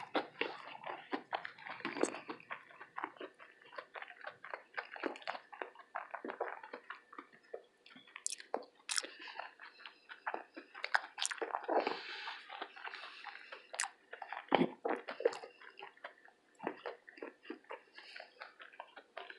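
A person chewing and biting fried food, with many irregular crunchy clicks and mouth smacks.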